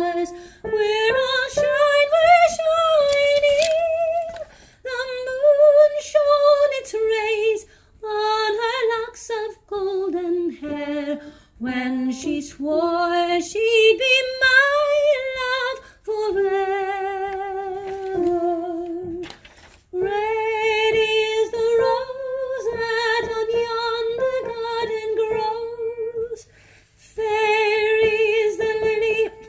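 A woman singing soprano: long held notes with vibrato and gliding pitch, in phrases broken by short pauses for breath.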